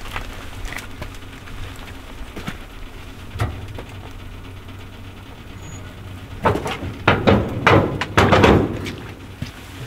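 Wood-fired maple sap evaporator burning with a steady low rumble, with a few light knocks early and a run of loud clattering knocks and scrapes in the second half from hands-on work at the evaporator.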